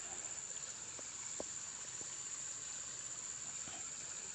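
Steady high-pitched drone of insects, with a few faint clicks about a second in.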